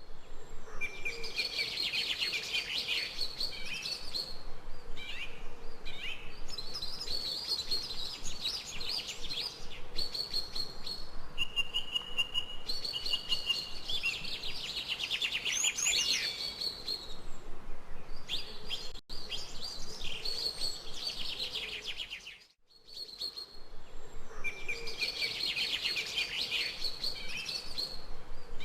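Songbirds chirping and singing in dense, quickly repeated high trills, with a steady held whistle-like note around the middle; the sound drops out briefly twice in the latter half.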